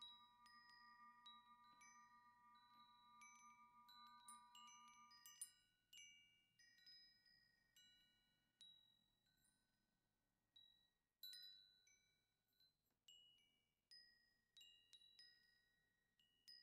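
Faint music of high, bell-like struck notes that ring out and die away. A held chord stops about five and a half seconds in, leaving single notes spaced roughly a second apart.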